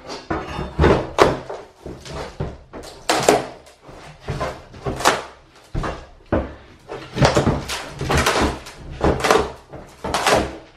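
A flat bar levering up old wooden floorboards: a run of irregular wooden knocks and bangs, several a second, as the bar bites and the boards shift.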